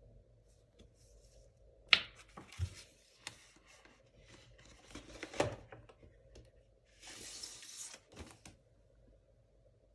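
Handling of a vinyl record's packaging: a sharp knock about two seconds in, rustling and scraping of paper or plastic, another knock about halfway, and about a second of sliding rustle near the end.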